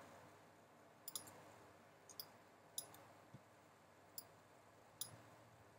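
Faint computer mouse clicks, about six of them roughly a second apart, as edges are selected one at a time; otherwise near silence.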